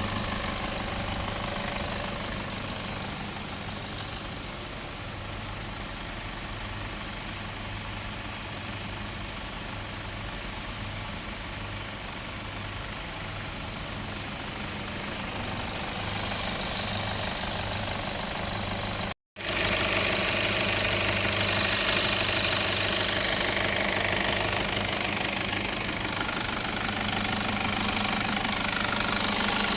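Nissan Patrol ZD30 four-cylinder turbodiesel idling steadily on a test run after an engine mount replacement. The sound cuts out for an instant about two-thirds through and comes back a little louder.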